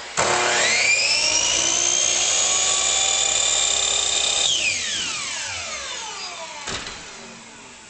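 Power miter saw spinning up with a rising whine, running steadily for about four seconds during an angled cut, then switched off and winding down with a long falling whine. A short knock sounds near the end.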